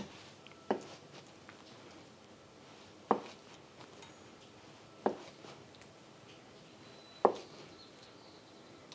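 Chef's knife slicing straight down through a block of medium-firm tofu and knocking on a wooden cutting board: four separate knocks, about two seconds apart.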